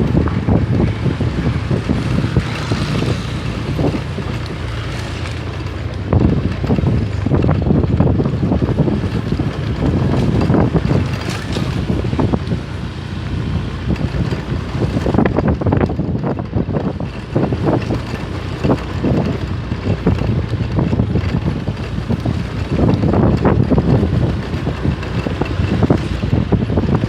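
A vehicle engine running with a steady low rumble. Wind buffets the microphone in irregular gusts.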